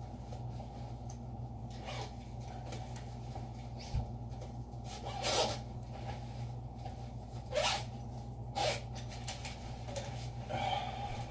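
Padded soft gun case being handled as a rifle is slid into it: a few brief scattered rustles and scrapes of the case fabric and one low knock, over a steady low hum.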